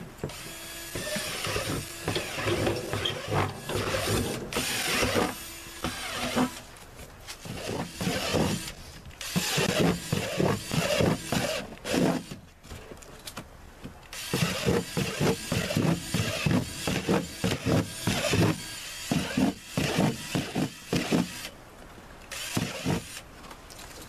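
Cordless drill boring holes through the thick plastic wall of a 32-gallon trash can, perforating it all around to make a sump basin. The drill runs in a series of bursts, a few seconds each, with short pauses between holes.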